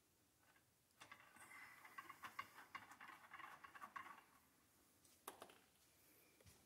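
Faint scratchy rustling and light clicks of barrel-cleaning gear being handled, with one sharper click about five seconds in.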